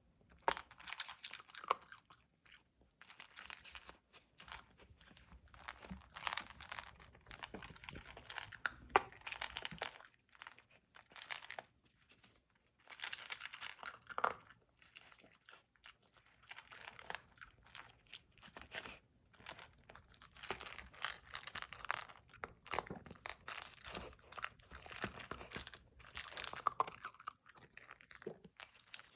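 Dachshund puppy crunching and chewing dry kibble from a slow feeder bowl: runs of quick crunches and small clicks, broken by a few short pauses.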